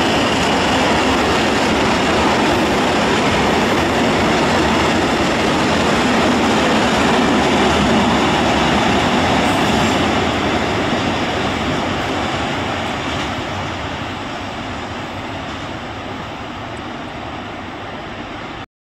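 Freight train of covered hopper wagons rolling past: a steady noise of wheels on the rails that fades slowly after about ten seconds as the end of the train draws away, then cuts off abruptly near the end.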